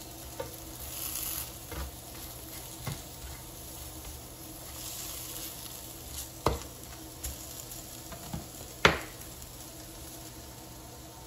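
Sliced potatoes sizzling in hot oil in a nonstick frying pan, late in frying as they turn crisp and brown, while tongs stir and turn them, scraping and knocking against the pan several times; the loudest knock comes about nine seconds in.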